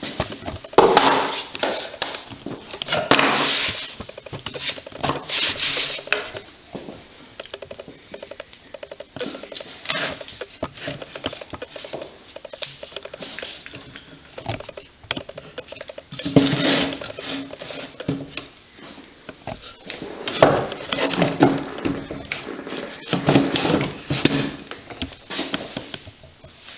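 Irregular metallic clanking, rattling and scraping as metal objects are handled and moved about, in several busy spells.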